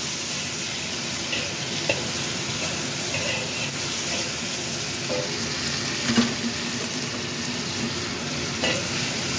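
Stir-fry of snow peas, carrot strips and fish balls sizzling in a wok, a steady hiss as a spatula tosses it, with the spatula knocking and scraping on the wok a few times, most sharply about six seconds in.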